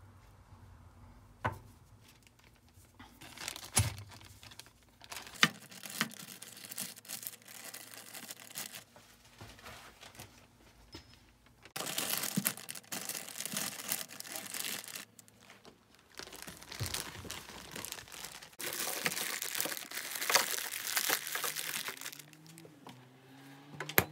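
Clear plastic bag crinkling in irregular bursts as gearbox gears and bearings are handled inside it. A sharp click near the end.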